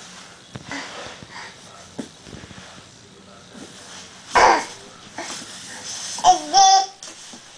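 An infant's voice: soft effortful breaths and babble, with a loud breathy huff about four seconds in and a short, high, wavering squeal near the end.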